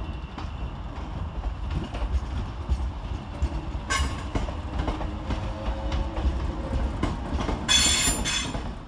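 ScotRail Class 318 electric multiple unit running slowly into the platform, its wheels clacking over rail joints under a low rumble. Two short high-pitched metallic squeals come from the running gear, one about four seconds in and a longer one near the end.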